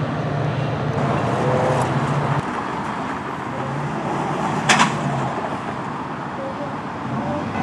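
Steady vehicle rumble with a low hum that drops away about two and a half seconds in. A brief sharp click or clack comes a little past halfway.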